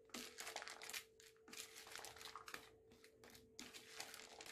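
Wooden spoon stirring and tossing diced vegetables and corn kernels in a plastic bowl: faint, irregular scraping and rustling strokes.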